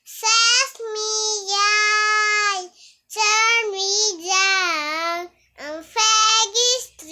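A young girl singing unaccompanied, in three phrases of long held notes with short breaths between them.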